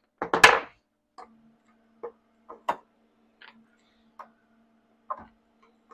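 Handling noises as paint-mixing gear is picked up and set down: one sharp knock about half a second in, then light, irregular clicks and taps. A faint steady hum starts about a second in.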